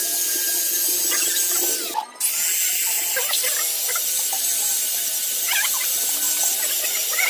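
Corded electric drill spinning a wire brush wheel against a rusty scooter muffler, scraping off rust and dirt with a steady high-pitched hiss and wavering squeaks. The drill stops for a moment about two seconds in, then runs on.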